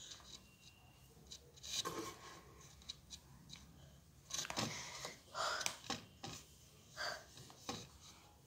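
Scattered short rustles and handling noises close to the microphone, a cluster of them through the middle, over a quiet room.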